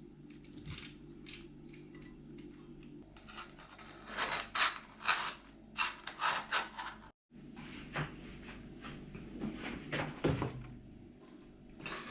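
Kitchen handling noise: runs of short scrapes and knocks of utensils against containers, in two bursts broken by a sudden cut about seven seconds in.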